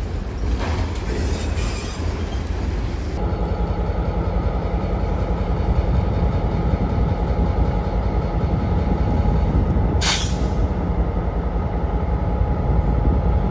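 Freight cars rolling past on the rails, with a high wheel squeal about a second in. About three seconds in the sound switches to an Indiana Harbor Belt diesel locomotive idling, a steady engine drone with a fixed whine, broken by a short sharp hiss about ten seconds in.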